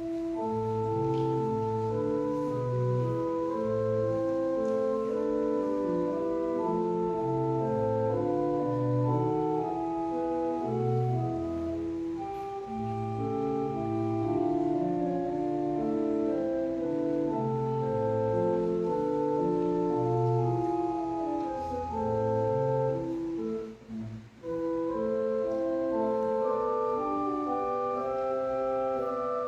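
Organ playing a slow instrumental piece, with held chords over a moving bass line and a brief pause about four-fifths of the way through.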